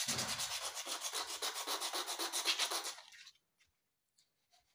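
Wet 320-grit sandpaper rubbed by hand over the metal brake shoe plate of a Honda CD 70, in quick, even back-and-forth strokes. It is a rhythmic, scratchy rasp that stops about three seconds in.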